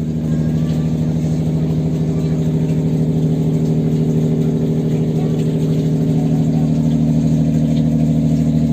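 Engine aboard a motor boat running steadily at a constant speed, with a fast even pulse.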